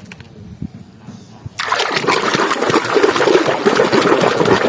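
A few faint knocks, then about a second and a half in running water starts and splashes steadily as a muddy toy is rinsed.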